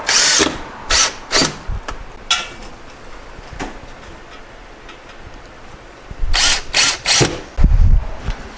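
DeWalt cordless drill driving 1 1/4 inch wood screws through a wooden furring strip into plywood, the motor running in short bursts. Several quick bursts come in the first four seconds and three more after a pause, followed by a low thump near the end.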